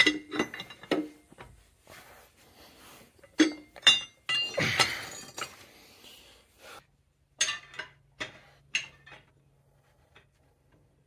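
Steel wrenches clinking and clanking against the crankshaft pulley and engine casing as a box-end wrench, braced by a pipe wrench on the pulley, is levered to break the crankshaft nut loose. The clanks are scattered and irregular, with the loudest cluster about halfway through; a faint low hum comes in during the second half.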